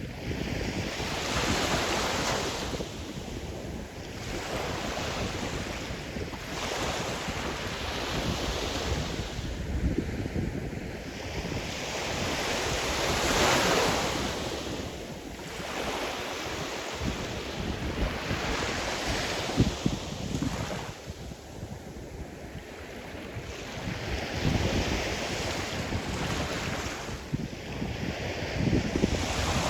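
Sea surf: waves breaking and washing in, swelling and falling away about every five to six seconds, with wind rumbling on the microphone.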